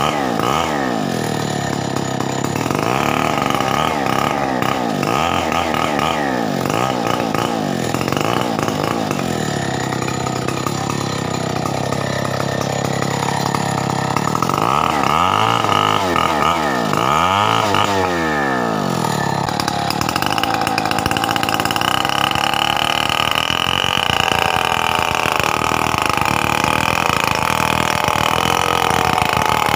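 Stihl 070 two-stroke chainsaw running, its engine speed rising and falling over and over, then held at a steady high speed from about twenty seconds in.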